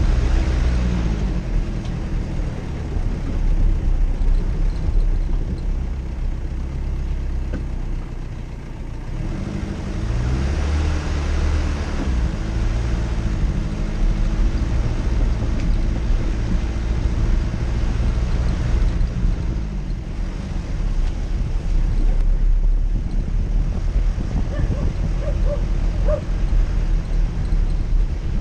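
Jeep Cherokee's engine running hard off-road, its pitch climbing and falling as it revs near the start and again about ten seconds in, over a steady low rumble.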